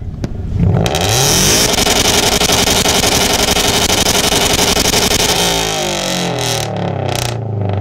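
Subaru BRZ's flat-four engine revved hard through its exhaust about half a second in, held at high revs for about four seconds for a sound-level reading, then let fall back toward idle.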